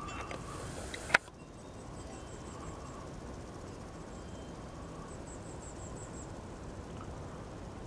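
Outdoor mountain-meadow ambience: a steady hiss, with insects chirping faintly in short runs of rapid high ticks, the clearest run about five seconds in. A single sharp click about a second in is the loudest sound.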